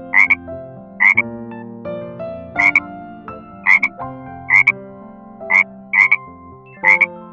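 A frog croaking over and over, about eight short calls roughly a second apart, each a quick double croak. A soft, simple tune of held notes plays underneath.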